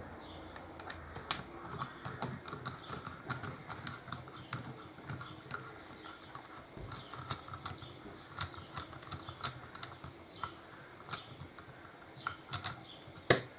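Hand driver clicking in quick, irregular runs as it backs Loctited bolts out of a four-piston aluminium brake caliper, with a cluster of louder metal clicks near the end.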